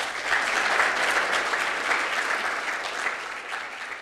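Audience applauding, swelling in quickly at the start and slowly dying down.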